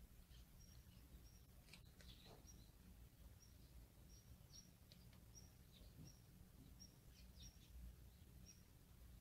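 Faint bird chirping: short, high chirps repeating about once or twice a second over near silence.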